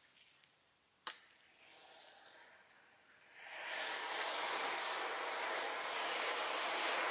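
A single sharp click about a second in. Then, from about three and a half seconds, a rising, steady hiss with crackles as the bundled match heads ignite and the fire spreads through them.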